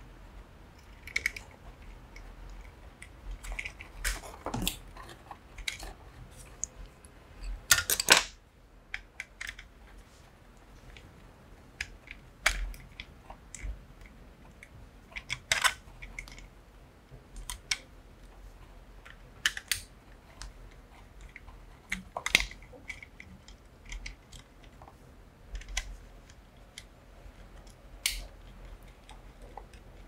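Handling sounds of a plastic wall switch panel being wired with a screwdriver: scattered small clicks, taps and plastic knocks, with a louder burst of rustling noise about eight seconds in.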